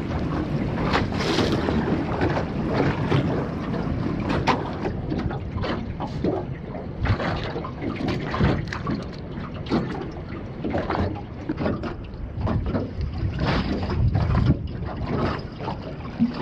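Wind buffeting the microphone over choppy water slapping against a small aluminium boat's hull, with irregular knocks and splashes throughout.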